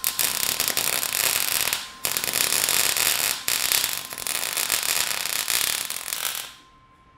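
Arc welding on a steel go-kart frame: the welding arc crackling and hissing steadily, with a short break just before two seconds in, and stopping about six and a half seconds in.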